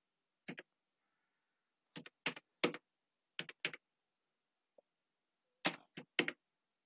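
Computer keyboard keys being tapped in short groups of two or three, with pauses of about a second between groups.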